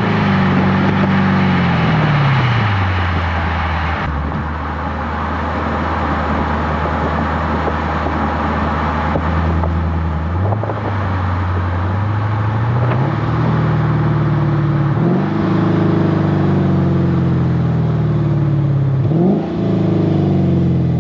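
Lexus GS-F's 5.0-litre V8 running through a Revel Medallion (Tanabe) exhaust while driving. The engine note falls for the first few seconds, holds steady, then jumps up sharply four times, each jump followed by a slow fall.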